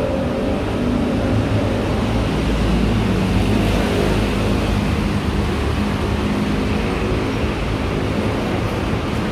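City street traffic: a steady rumble of motor vehicles with engines running close by.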